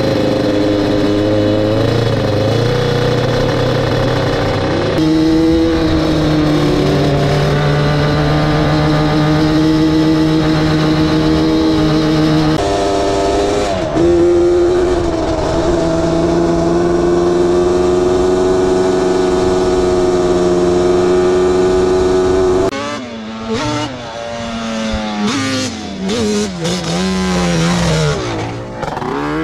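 Yamaha Banshee two-stroke twin-cylinder quad engines running hard across sand, a steady high-revving drone that jumps to a new pitch at a few points. Near the end the engine is quieter and its pitch swoops up and down several times as the throttle is worked.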